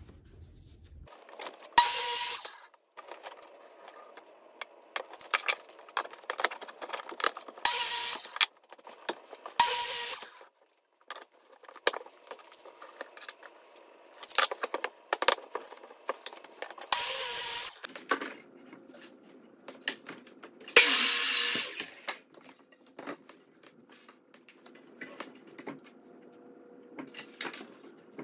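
A Ryobi sliding miter saw making about five short cuts through 2x6 boards, each burst lasting a second or so with a steady motor whine. Between the cuts come quieter knocks and scraping as the boards are handled and marked.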